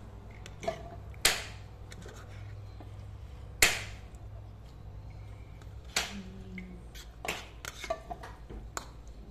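Scattered sharp clinks and clacks of dishes and cutlery as people eat, about half a dozen, the loudest two in the first four seconds, over a low steady hum.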